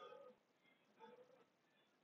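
Near silence: room tone, with a couple of faint, brief pitched sounds at the start and about a second in.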